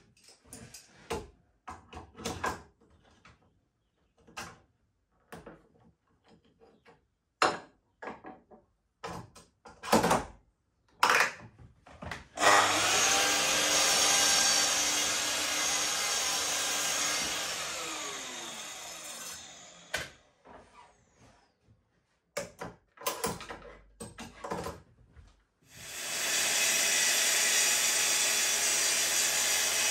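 Knocks and clunks of a hardwood board being handled, then a Festool Kapex sliding mitre saw cutting it: a loud burst whose whine falls away over several seconds as the blade spins down. More knocks follow, then near the end another power tool starts and runs steadily.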